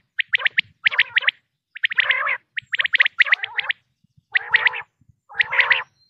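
Common quail calling: about seven short bursts of rapid, clipped notes, each burst well under a second, separated by brief silences.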